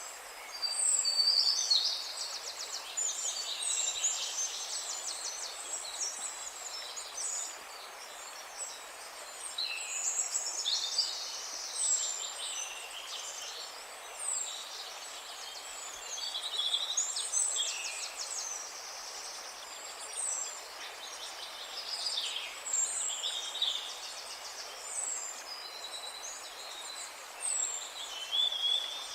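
Songbirds singing, with overlapping chirps, whistled notes and fast trills in quick succession, over a steady faint hiss.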